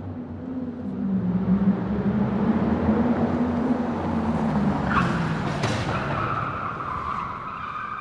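Animated logo intro sound effect: a wavering low rumble like a car engine, two sharp whooshes about five seconds in, then a held high tone near the end.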